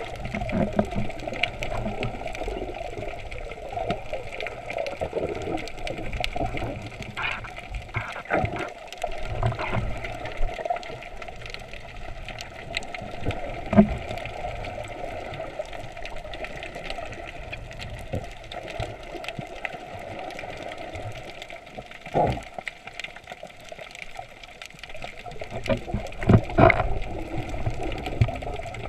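Underwater sound through a GoPro's waterproof housing: a steady, muffled rush of water moving past the camera, with scattered soft knocks and a few louder thuds.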